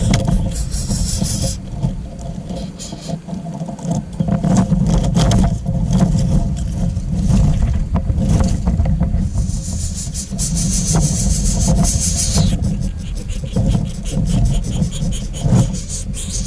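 Outdoor ambience: a steady low rumble with scattered rustling and scraping clicks, joined partway through by about three seconds of high insect buzzing that cuts off suddenly.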